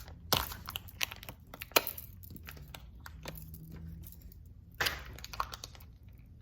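Plastic packaging of a toy slime crackling and crinkling as it is torn open and handled, with a few sharp crackles and a longer rustle near the end.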